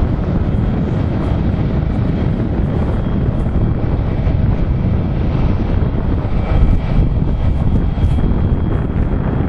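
Airbus A320 jet engines running at taxi power as the airliner rolls past, a steady rumble with a faint high whine. Wind buffets the microphone.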